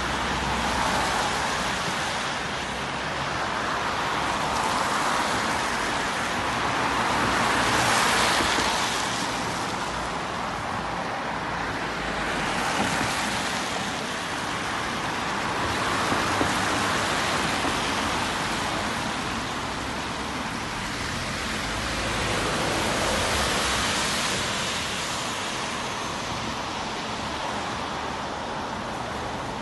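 Road traffic passing on a wet road: tyres hiss, swelling and fading as each vehicle goes by, loudest about eight seconds in and again near sixteen and twenty-three seconds.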